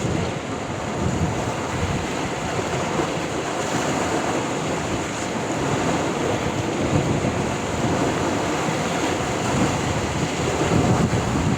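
Sea surf: waves washing onto the shore in a steady rush, with wind buffeting the microphone in low rumbling gusts near the start and again near the end.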